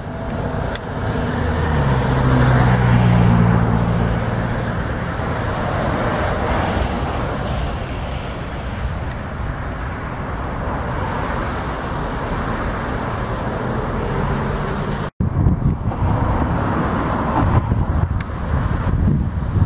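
Steady rushing traffic noise from the road and railway along the causeway, with a low hum over the first few seconds and a momentary break about fifteen seconds in.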